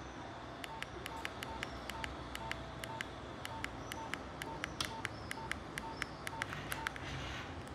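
Nokia 1110i keypad being pressed over and over: quiet key clicks with a short beep about twice a second, typical of stepping through the phone's menu.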